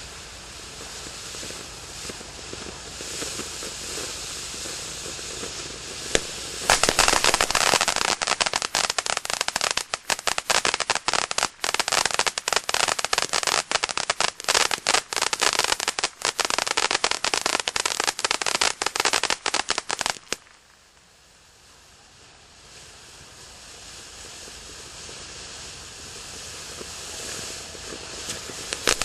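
Ground fountain firework spraying sparks with a steady hiss; about seven seconds in it breaks into loud, dense crackling that lasts about fourteen seconds and cuts off suddenly. The hiss then comes back and grows louder toward the end.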